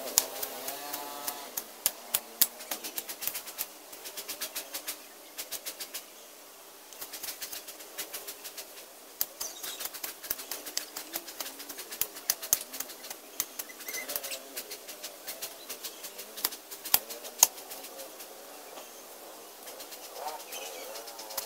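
A hand tool striking, chopping and scraping through dense weeds and soil, with sharp irregular strikes, a few a second, and rustling of the cut vegetation. A bird calls briefly near the start and again near the end.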